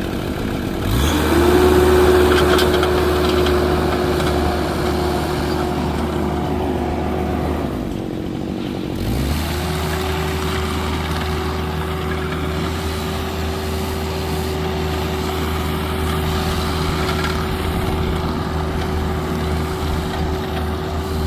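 An engine revs up and holds at a steady high speed, drops out for about a second and a half near the middle, then revs up again and holds until it winds down at the end.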